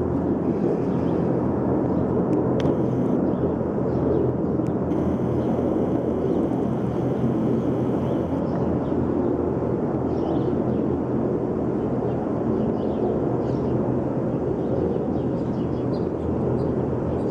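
A group of military helicopters flying overhead, their rotors and turbine engines making a steady, even drone.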